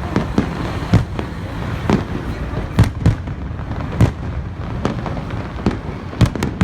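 Aerial fireworks bursting: a string of about a dozen sharp bangs, one or two a second, over a steady low rumble.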